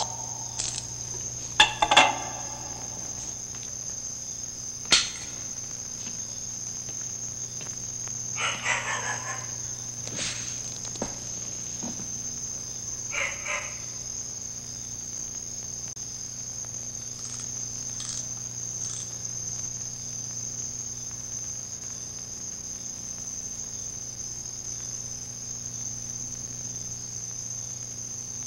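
Crickets chirring in one steady high trill, over a low hum, with a few sharp clicks and knocks and two short scuffing noises.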